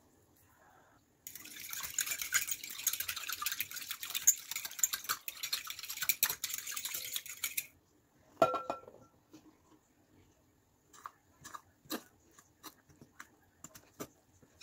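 Metal fork whisking a milk mixture in a glass bowl: a fast, continuous rattle of metal on glass lasting about six seconds. It is followed by one loud glassy clink, and near the end by scattered light taps of the fork stirring flour against the bowl.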